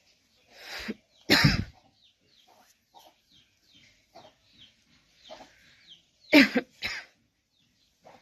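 A person coughing: a short cough followed by a harsher, louder one about a second in, then a quick pair of coughs about six and a half seconds in.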